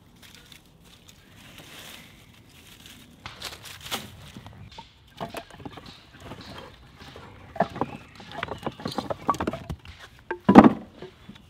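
Cut firewood logs knocking against each other as they are pulled from a log stack, a string of wooden clunks that thickens in the second half, with the loudest clunk near the end.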